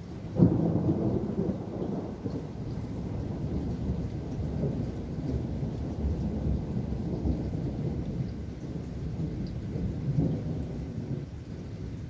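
Thunder: a sudden clap about half a second in, then a long low rumble that rolls on and swells again near the end, over steady rain.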